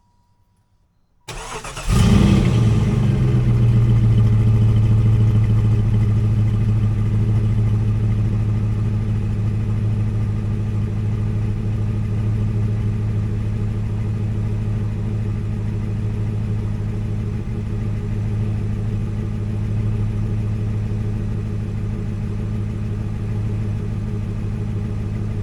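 1993 Jeep Grand Cherokee engine cranking and starting about a second in, then idling steadily, a little louder at first and easing slightly as the idle settles.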